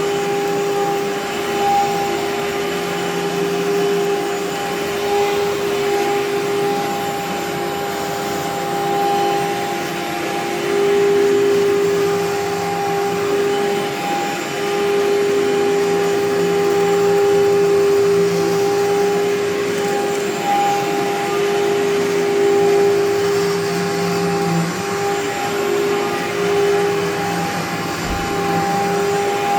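Amway ClearTrak upright vacuum cleaner running steadily: a constant motor whine over a rushing of air.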